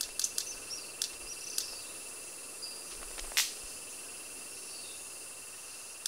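Red-capped manakins making sharp wing snaps: a quick run of clicks in the first second or so, then one loud snap about three and a half seconds in. Under them runs a steady, high insect drone.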